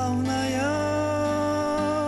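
Christian song: a solo voice sings the word «славная», holding one long note over a steady low instrumental accompaniment.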